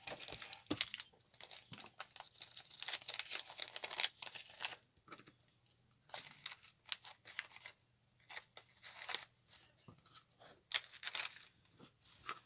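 Thin clear plastic bag crinkling in irregular bursts as hands handle it.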